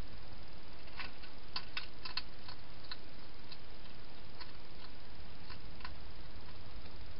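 Wild hedgehog crunching dry food from a bowl: irregular small crisp clicks, densest in the first few seconds, over a steady background hiss.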